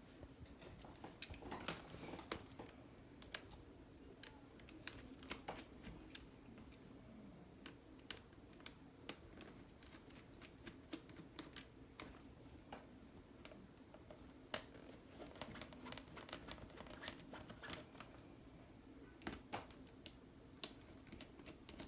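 Faint, irregular small clicks and taps of a screwdriver and screws on the plastic of a laptop's screen assembly as its screws are taken out, over a faint steady hum.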